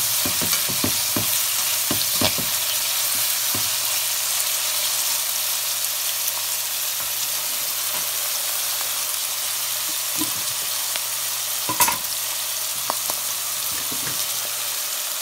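Chopped onions sizzling in hot oil in a metal pan, a steady frying hiss. A spatula stirs and scrapes them, with several clicks against the pan in the first few seconds and a sharper knock later on.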